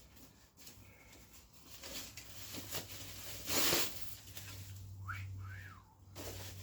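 Rustling and handling noises from unwrapping a new fuel tank, with one louder rustle about halfway through. Near the end comes a brief whistle that rises and falls twice, over a low steady hum.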